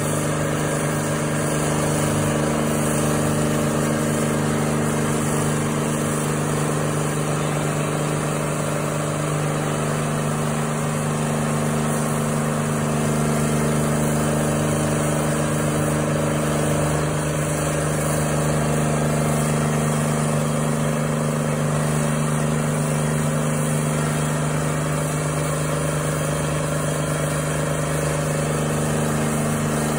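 Intimidator stump grinder's engine running steadily under load while its cutter wheel grinds into a tree stump, a constant engine drone with a rough grinding noise over it.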